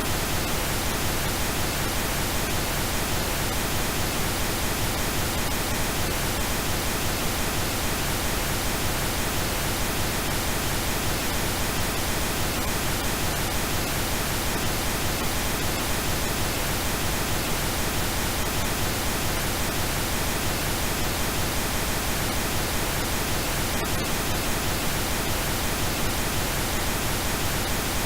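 Steady pink noise: a constant, even hiss across the whole range, with no breaks or changes.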